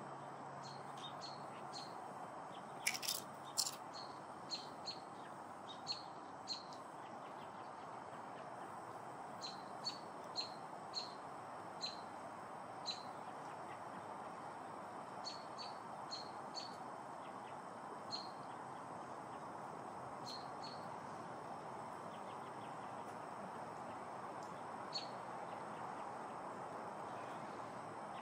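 A small bird chirping, short high notes repeated irregularly, over a faint steady hiss of background noise. A couple of sharp snaps about three seconds in.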